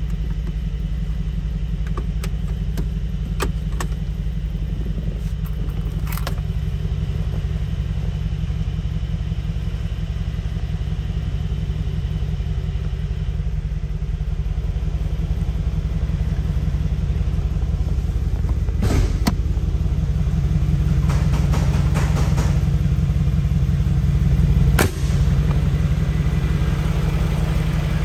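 Mercedes-AMG G63's 4.0 L twin-turbo V8 idling with a steady low rumble, a little louder in the second half. A few light clicks sound over it, with a sharper knock near the end.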